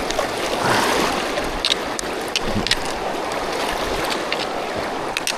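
Fast-flowing river water rushing steadily, with a few short clicks scattered through it.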